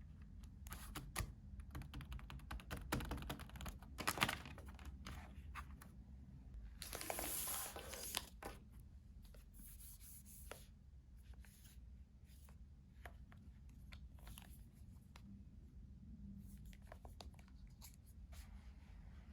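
Packaging being handled at close range: scattered clicks and rustles, with one tearing sound about seven seconds in that lasts about a second and a half.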